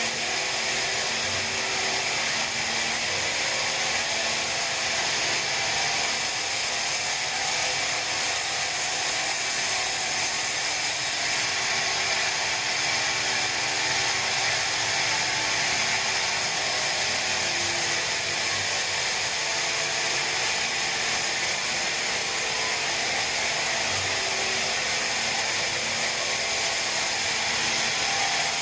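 Band sawmill running steadily, its blade sawing through a pine log with an unbroken hiss and whine.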